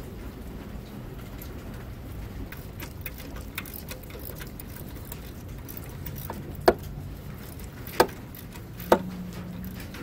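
Faint metallic ticks as a new oil drain plug is threaded into a car's oil pan by hand, then three sharp metal clinks about a second apart near the end as a wrench goes onto the plug, the last one ringing briefly. Under it runs a steady low hum.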